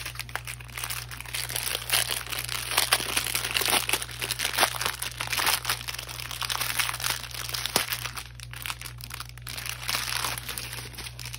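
Clear plastic packaging crinkling and crackling, with many small irregular ticks, as a sleeve of diamond painting drill packets is handled.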